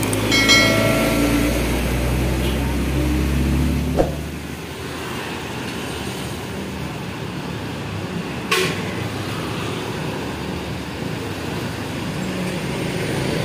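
Heavy diesel truck passing close with its engine rumbling low, and a short horn-like tone in the first second or so. The sound changes abruptly about four seconds in to steady passing traffic of trucks and motorcycles, with one sharp knock partway through.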